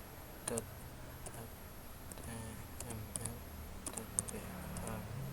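Computer keyboard being typed on: a few scattered keystrokes, then a quicker cluster of clicks about three to four seconds in.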